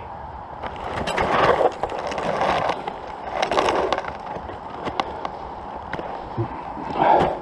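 Bursts of rough rustling and scraping, each about half a second to a second long, four in all, with scattered sharp clicks between them.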